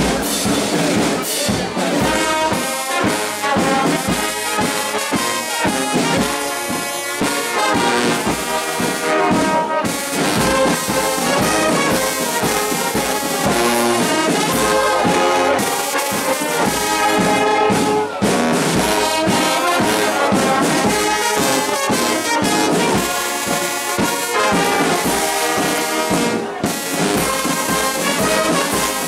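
Live brass band of trumpets, trombones and sousaphones playing a tune together, loud and close.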